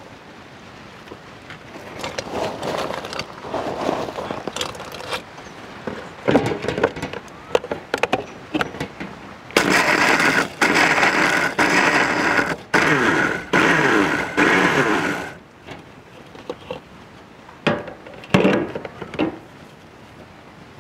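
Electric mixer grinder crushing Oreo biscuits to powder in its stainless steel jar: a few short pulses, then the motor runs for about six seconds with brief breaks, stopping about fifteen seconds in. Before and after it, short knocks and rattles of the jar being handled.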